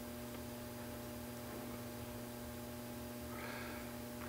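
Low, steady electrical hum with faint hiss from the lectern microphone and sound system during a pause in speech.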